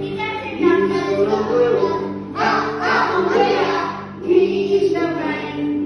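A song playing: several voices singing together over a steady musical backing.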